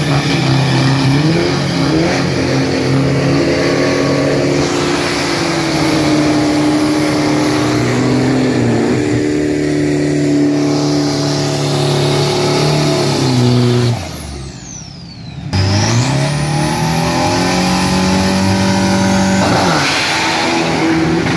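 Drag-racing pickup truck's engine held at high revs during a burnout at the start line, tyres spinning. The engine note dips for about a second and a half, two-thirds of the way through, then climbs back up.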